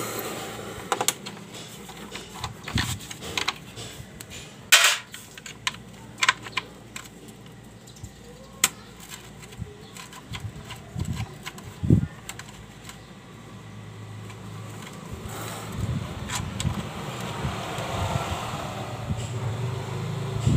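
Irregular metallic clicks and taps of a hex key and hand tools on the bolts of a Yamaha Mio scooter's CVT cover, with a low rumble building over the last several seconds.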